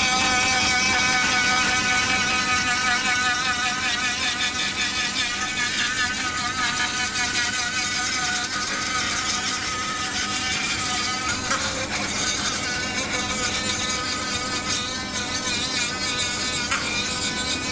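Flexible-shaft rotary tool with a small sanding drum whining at high speed as it sands paint and damaged layers off a carbon fibre frame tube, its pitch wavering as the drum is pressed on and eased off.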